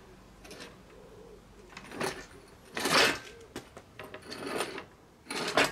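Stud extractor on a long bar being heaved against a seized, corroded cylinder-head stud in an aluminium engine block, giving several short, harsh bursts of creaking and scraping. The loudest comes about three seconds in and a sharp one near the end.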